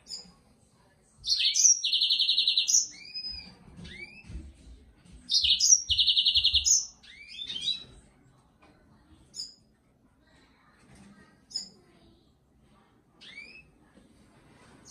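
Yellow-fronted canary (green singer) singing: two loud song phrases a few seconds apart, each with a fast buzzing trill, followed by scattered short chirps.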